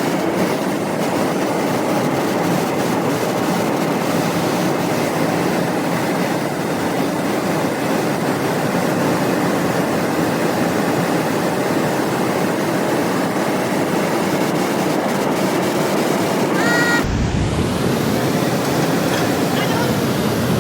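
Loud, steady machinery noise, an even rushing din with no clear rhythm, whose sound changes abruptly about seventeen seconds in.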